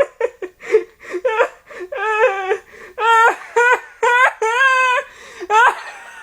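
A high-pitched voice making a string of short, wavering whimpering wails, with a longer held wail at about four and a half seconds in.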